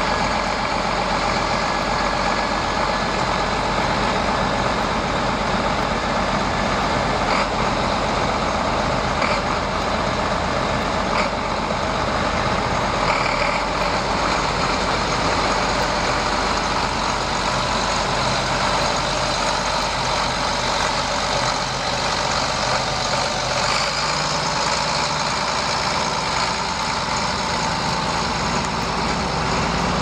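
Case Agri King 1370 tractor's six-cylinder diesel engine running steadily as the tractor drives and turns on dirt.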